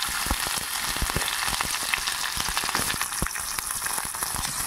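Sliced onions and panch phoron seeds frying in hot oil: a steady sizzling hiss with many small crackles and pops throughout.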